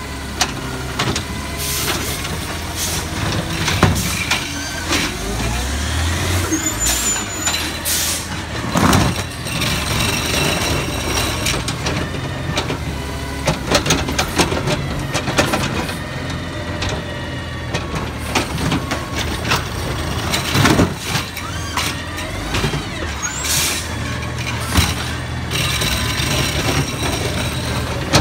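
Automated side-loader garbage truck running, its hydraulic arm whining as it holds and shakes a wheeled cart upside down over the hopper. Several sudden loud bangs and hisses of air break through the steady engine hum.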